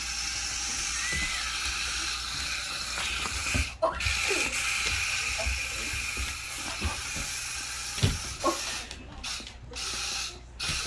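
Remote-control spider toy's small motor and gears running with a steady ratcheting whir. It cuts out briefly about four seconds in and a few times near the end, with a few light knocks in between.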